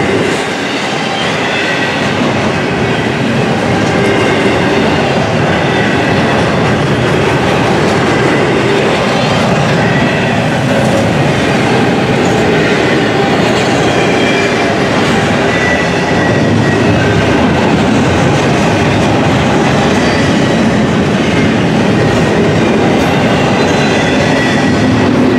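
Double-stack intermodal container well cars of a freight train rolling past at close range: a steady rumble and rattle of steel wheels on rail, with a faint high squeal coming and going.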